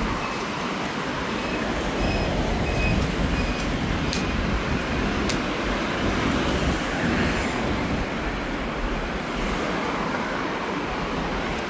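Steady street traffic noise, a continuous wash of passing vehicles, with a few sharp clicks and faint short high peeps in the first half.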